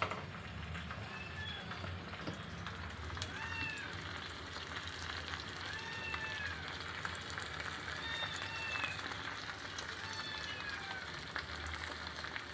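Whole marinated fish shallow-frying in oil on a large tawa: a steady sizzle and crackle. Over it, a short high call that rises and falls repeats every second or two.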